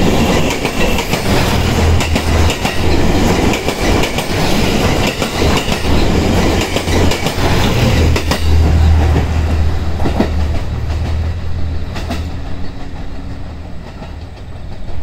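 JR Central HC85 series hybrid diesel train passing through the station at speed without stopping, close to the platform. The wheels clatter over rail joints over a steady low engine hum, and the sound fades away over the last few seconds as the train leaves.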